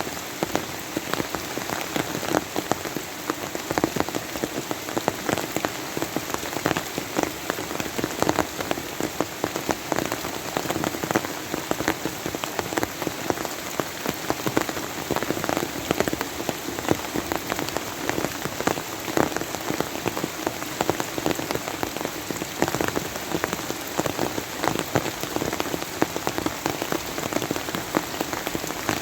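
Steady rain falling on a surface, with many sharp individual drop hits over a continuous hiss.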